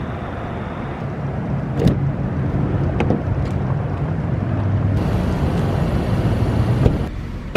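A car's steady low rumble, with a few short sharp clicks over it.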